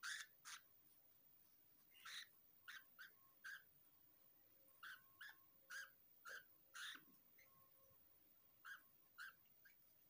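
Budgerigar giving faint, short chirps, about fifteen of them at uneven intervals, with a pause of over a second before the last few.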